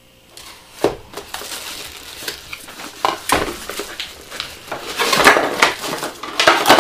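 Cardboard box flaps and plastic packaging rustling and crinkling as a palm sander is unpacked by hand, with sharp clicks of cardboard among them. The crinkling is loudest near the end as the bagged sander is pulled out of its box.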